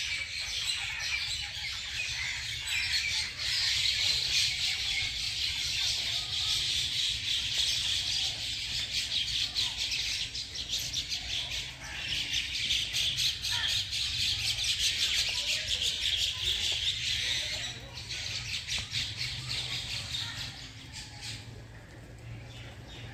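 A dense chorus of many birds chirping and chattering at once, steady for most of the time and thinning out near the end.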